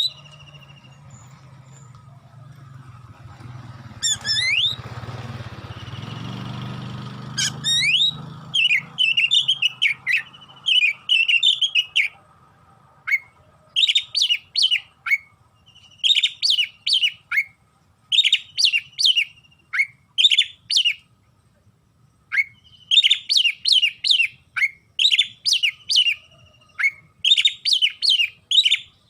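Oriental magpie-robin (kacer) singing. A few rising whistled sweeps over a low rumble come first; from about eight seconds in they give way to a run of loud, rapid chattering phrases about a second long, with short pauses between them.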